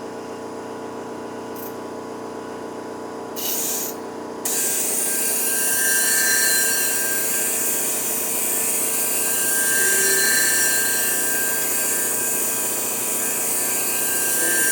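A clipper-blade sharpening machine's motor hums. A little over three seconds in, a clipper blade briefly touches the spinning hone plate. From about four and a half seconds it is ground steadily against the plate: a loud grinding hiss with a high whine that swells and eases.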